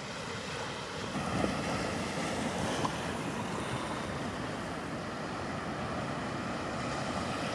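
Ocean surf washing on the beach as a steady hiss, with wind on the microphone.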